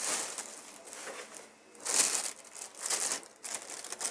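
Bubble wrap and a plastic bag crinkling as a wrapped camera body is handled and lifted out of its packaging. The crinkling comes in irregular bursts, the loudest about two seconds in.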